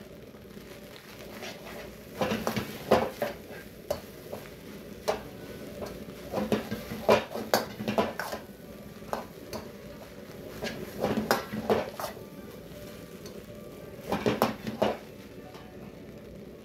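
Metal ladle scraping and tossing fried rice and bean sprouts around a wok, in clusters of clanks and scrapes every few seconds, with the food sizzling quietly between them.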